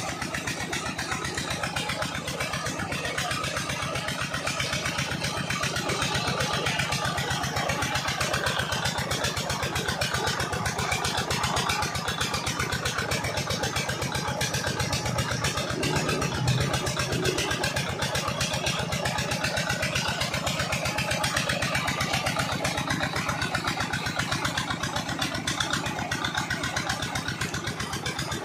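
Old stationary diesel engine driving a tube well pump, running steadily with an even, fast beat, mixed with water gushing out of the discharge pipes.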